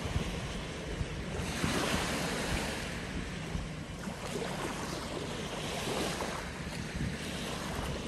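Small waves washing up onto a sandy beach and drawing back, the surf's hiss swelling twice. Wind buffets the microphone with a low rumble.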